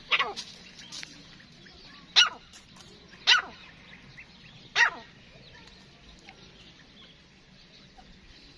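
Four short, sharp animal calls, each falling quickly in pitch, spaced one to two seconds apart over the first five seconds.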